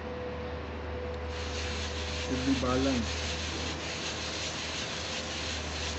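Hydraulic gear pump housing being lapped by hand on an abrasive sheet. A steady scratchy rubbing starts about a second in and carries on in repeated strokes as the mating face is ground flat. Near the middle there is a brief wordless sound from a man's voice.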